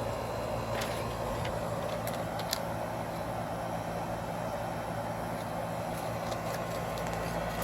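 Steady mechanical running noise with a low hum and a few faint clicks.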